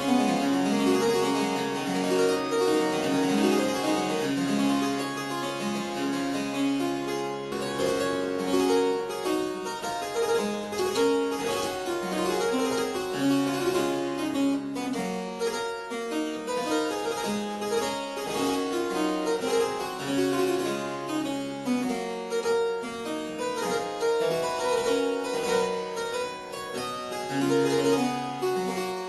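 Harpsichord being played: a continuous run of quick plucked notes, with several lines moving at once.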